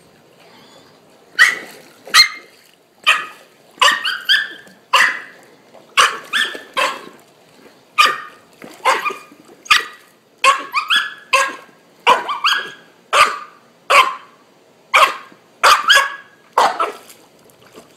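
Young puppy barking over and over in short, sharp, high yaps, about one or two a second, starting about a second and a half in, excited over its ball.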